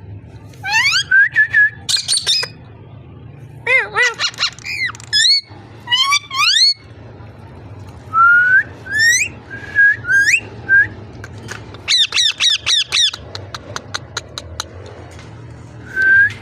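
Ringneck parrot whistling and squawking: a string of short rising whistled notes and chirps, then a quick run of repeated sharp chirps about twelve seconds in, followed by a rapid train of clicks. A low steady hum runs underneath.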